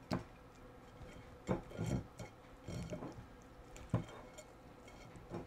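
Silicone pastry brush spreading oil around a glass pie dish: soft brushing with a few light taps and clicks of the brush against the glass, about five of them.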